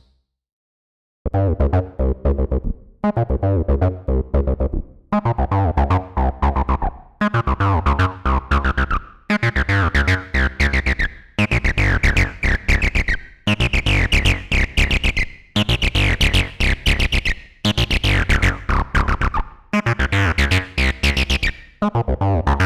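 Behringer TD-3-MO analog bass synthesizer playing a squelchy acid bassline sequence of short, repeating staccato notes, starting about a second in after a brief gap. Over the middle the resonant filter opens, and the tone turns brighter and more biting.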